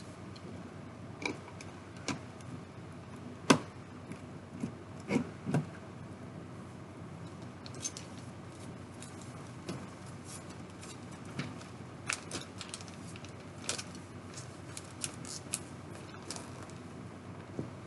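Plastic Lego bricks clicking as they are handled and pressed together to build a Lego City 60217 fire plane. The clicks are sharp and irregular, the loudest about three and a half seconds in, and they come more often near the end, over a steady faint hiss.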